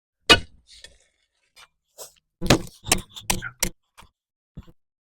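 Sharp knocks of a concrete slab being broken out by hand: one hard knock near the start, then a quick run of about five around the middle and a faint last one near the end.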